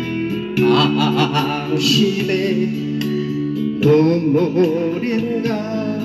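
Background music: a song with a voice singing wavering, vibrato-laden notes over instrumental accompaniment.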